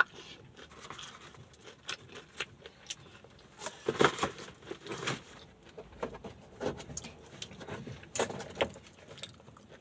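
A person chewing fried food close to the microphone: soft wet mouth clicks throughout, with louder crunchy chewing bursts about four to five seconds in and again around eight seconds.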